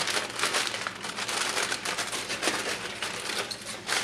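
Heavy-duty aluminum foil crinkling and crackling as a long length is pulled off the roll in its box.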